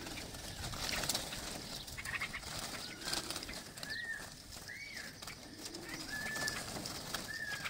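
Caged mynas and bulbuls calling: a string of about five short, clear whistled notes, each rising then falling, spaced a second or so apart, over wing flutters and rustling.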